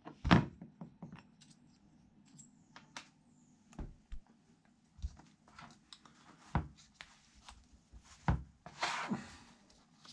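Steel gearbox gears and shaft from a 125 pit bike being handled and slid together by hand: scattered metallic clicks and knocks, a sharp one just after the start and two more in the second half, and a short scraping rattle near the end.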